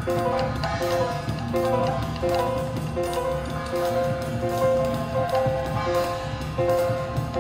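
Live jazz: a piano plays a repeating figure of short notes over a drum kit with cymbals.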